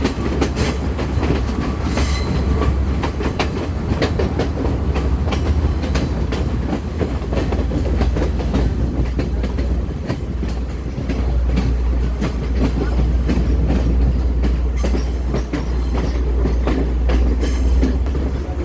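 Passenger train running along the track, heard from on board: a steady heavy low rumble with the repeated clatter of wheels over rail joints.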